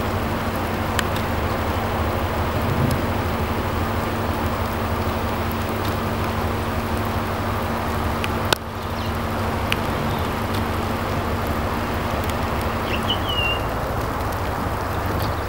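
Steady rushing wind noise on the microphone with a low steady hum beneath it, a sharp click about halfway through, and a small bird chirping briefly near the end.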